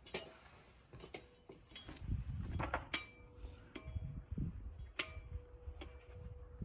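Scattered clicks and knocks, about a dozen, over a low rumble, as of objects being handled and moved about.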